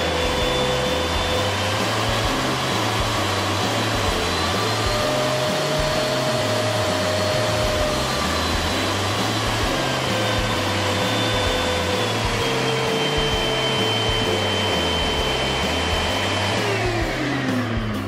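Thomas Aqua Box Compact water-filter vacuum cleaner running through its power modes. The motor's steady whine steps up in pitch about five seconds in and drops back a few seconds later, then falls lower again. Near the end it winds down as the vacuum is switched off.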